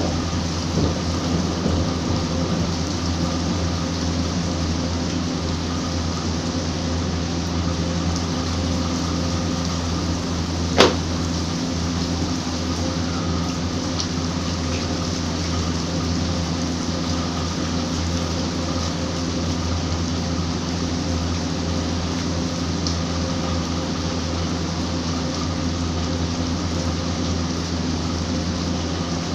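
Steady rain falling on a concrete rooftop terrace, under a low steady hum, with a single sharp click about eleven seconds in.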